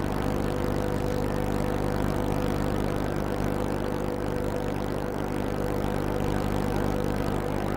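Steady low drone of tugboat diesel engines under way, with a thin steady whine on top that fades out near the end.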